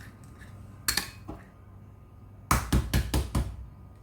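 Eggs being tapped against the rim of a mixing bowl to crack them: one sharp knock about a second in, then a quick run of about six knocks.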